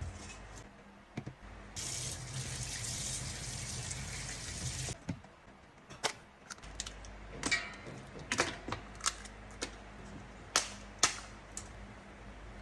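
Water running steadily for about three seconds, then a series of sharp kitchen clicks and knocks.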